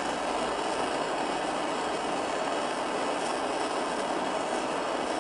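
Gas torch flame hissing steadily while heating a small watch wheel on a brass bar towards bluing temperature.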